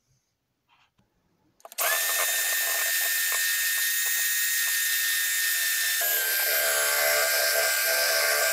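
Breville electric hand mixer switched on with a click after a short quiet spell, then running steadily with a high motor whine as its beaters whip egg whites and ground flaxseed into a foamy batter. About six seconds in the whine drops slightly in pitch and turns fuller.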